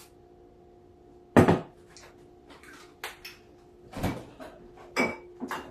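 Kitchen cabinet doors being opened and shut, a series of five or so knocks and clatters with the odd clink of dishes. The loudest bang is about a second and a half in.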